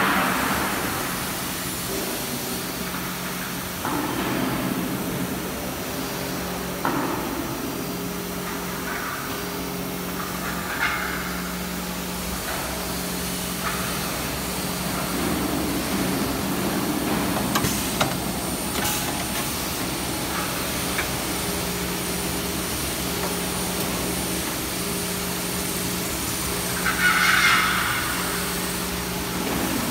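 CNC vertical machining centre milling steel: a steady hum that pulses on and off, with the hiss of cutting and coolant spray and scattered sharp ticks. The cutter briefly squeals twice, about eleven seconds in and again near the end.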